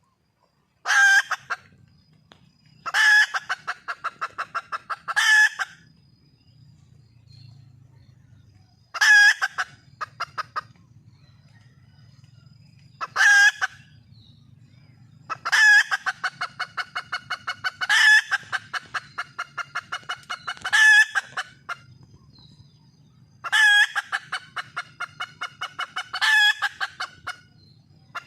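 Red junglefowl hen calling for a mate: repeated cackling calls, each a loud note followed by a fast run of short clucks, coming every few seconds. A faint low hum sits underneath between the calls.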